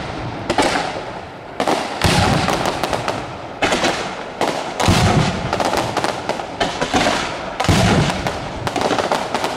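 Daytime firework battery of the San Severo type: dense, rapid crackling of firecrackers with heavier bangs every second or two.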